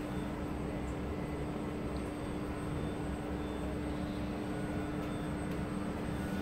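Steady drone of aircraft machinery heard inside an airliner's tail compartment, with a constant low hum tone over a rumble and no change in pitch or level.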